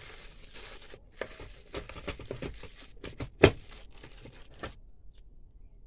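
Plastic wrapping crinkling as bagged hand tools are handled, with a run of small clicks and knocks and one sharp knock about three and a half seconds in.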